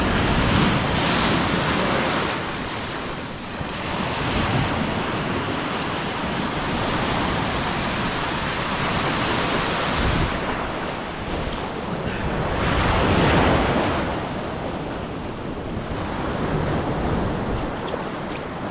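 Rough, heavy sea surf breaking and washing up the beach, with wind buffeting the microphone. The surge swells louder about a second in and again about two-thirds of the way through.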